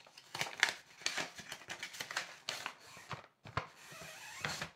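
Retail packaging of a GoPro Hero 12 Black being pulled and torn open by hand: a run of irregular scrapes, rips and rustles. Near the end comes a longer rip that stops suddenly.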